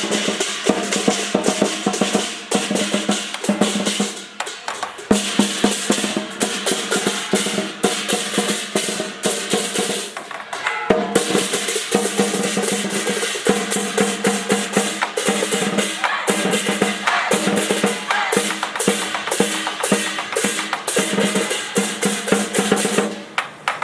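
Traditional temple procession percussion: drums beaten in fast, dense strokes under steady ringing metal percussion.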